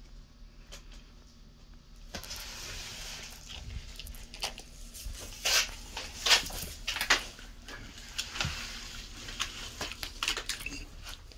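Irregular rustling, scraping and clicking of dry grass, soil and bark being brushed and moved, starting about two seconds in, with the sharpest clicks near the middle.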